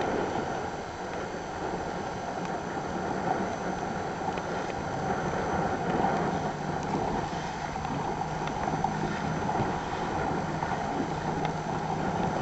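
Wind buffeting the microphone over choppy water, with the steady low hum of a motorboat's engine underneath.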